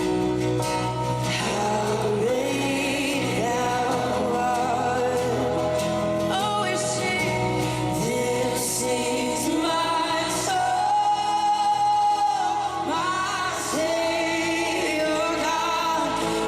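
Gospel song: voices singing over instrumental backing.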